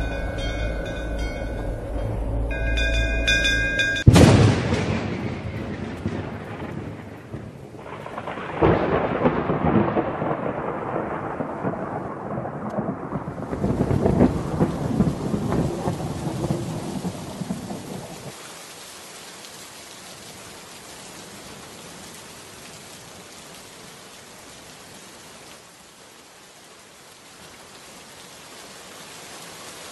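Large brass temple bells ringing for the first few seconds, then a sharp thunderclap about four seconds in, followed by rolling thunder with a second clap around eight seconds. The rumbling dies away by about eighteen seconds and leaves steady heavy rain.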